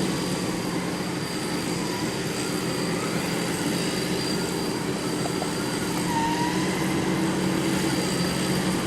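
Off-road 4x4 vehicle engine running steadily at a constant speed, with no clear revving.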